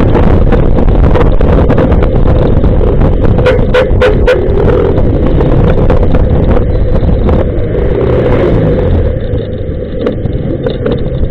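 Motorcycle riding on a wet road: engine running under heavy wind rumble on the microphone, with a few sharp ticks about four seconds in, and a little quieter near the end.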